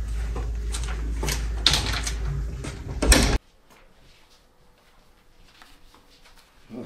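A door being handled, several sharp clicks and knocks over a steady low hum. It cuts off abruptly about three and a half seconds in, leaving quiet room tone.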